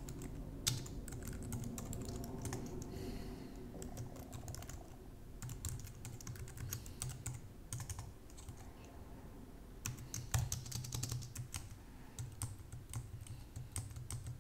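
Typing on a computer keyboard: irregular bursts of key clicks, with a short lull a little after halfway and the busiest typing in the last few seconds.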